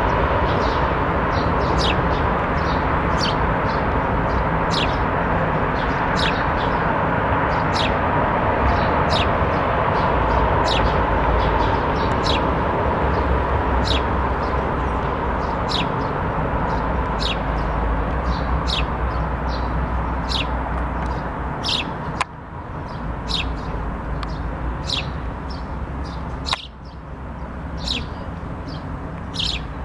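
Sparrow chirping over and over: short, high chirps falling in pitch, about one or two a second, over a steady background hum.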